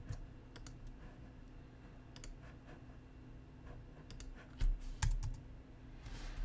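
Scattered clicks of a computer mouse and keyboard, a few at a time with pauses between, the loudest a pair of heavier clicks about two-thirds of the way through.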